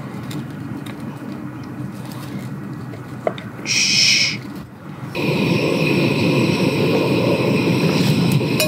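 A lump of beef tallow sizzling as it is pushed around a hot carbon-steel frying pan on a gas stove. The steady, loud sizzle starts suddenly about five seconds in. Before it there is quieter handling of the steak and a brief hiss as seasoning is sprinkled over it.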